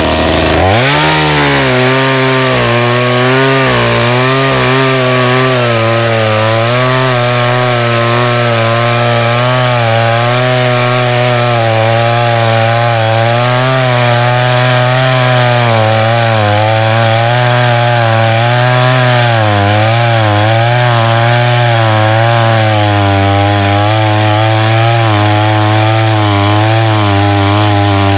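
Blue Max 57cc two-stroke chainsaw revving up about half a second in, then running at full throttle as it cuts through a log, its engine note wavering under the load of the chain in the wood.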